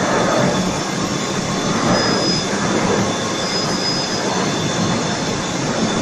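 Rigid stranding machine for power cable running at speed, its cage of copper-wire bobbins turning, with a loud, steady mechanical rattle and a faint thin high whine over it.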